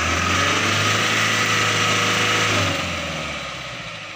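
Mahindra Bolero pickup's engine revving hard as the truck, stuck in mud, tries to pull out. The revs drop and the sound fades away after about two and a half seconds.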